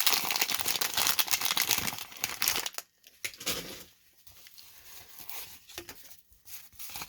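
Wax-paper wrapper of a 1991 Topps baseball card pack being torn open and crinkled for nearly three seconds, then fainter rustling and light taps as the cards are handled.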